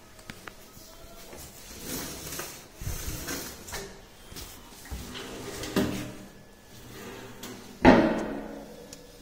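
Kitchen cabinet drawers being pulled open and pushed shut several times, with sliding runs and knocks; the loudest is a sharp bang as one shuts near the end, followed by a short ring.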